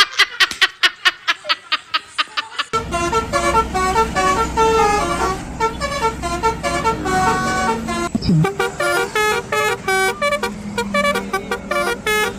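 Multi-tone bus telolet horn playing a fast tune of short stepped notes over a low engine hum, after a couple of seconds of rapid, even clicking.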